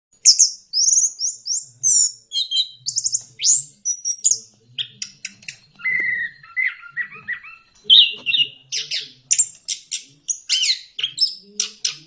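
A ground thrush in full, unbroken song: quick, varied high whistled phrases and sharp chips one after another, with a fast run of short notes in the second half.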